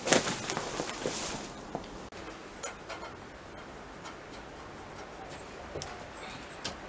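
Light metallic clicks and knocks from hands working the bolt at the head of a steel support prop. There is a cluster of sharper knocks in the first second, then scattered faint ticks, with one sharper click near the end.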